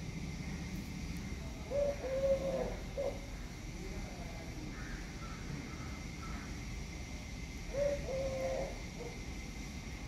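A dove cooing: a short, low phrase of a few notes about two seconds in and again near the end, with fainter bird calls in between.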